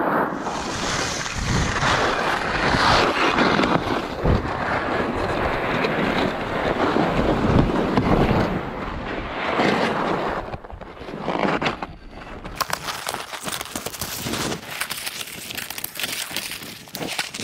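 Skier's fall on a groomed slope: body, skis and a pole-mounted camera scraping and sliding over snow with wind buffeting the microphone and a few dull thumps. After about ten seconds the sliding stops and it quietens to snow crunching and short clicks of ski gear being handled, a ski having come off in the fall.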